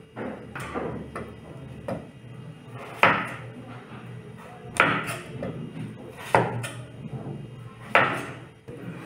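Chef's knife slicing a potato on a wooden cutting board: a sharp knock of the blade on the board every second or two, with quieter cutting sounds in between.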